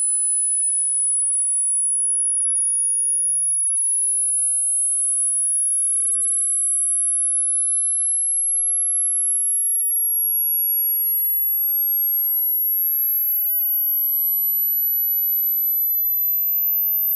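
A single very high-pitched electronic sine tone, steady in loudness and slowly rising in pitch in small steps.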